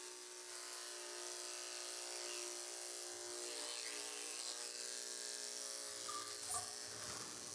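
Electric dog grooming clippers running with a steady hum as they are worked over a Schnauzer puppy's head and face.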